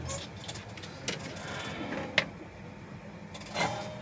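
Small clicks and rustles of hands handling wires and tools on a workbench, with one sharp click about halfway through, over a steady low hum.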